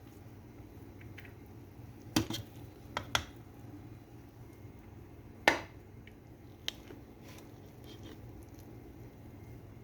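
Metal kitchen utensils and cookware clinking a handful of times, the sharpest knock about halfway through, over a steady low hum.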